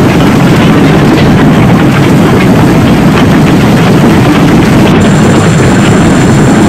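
Hailstorm with heavy rain in strong wind: a loud, continuous rush with many sharp ticks of hailstones striking, and wind buffeting the microphone.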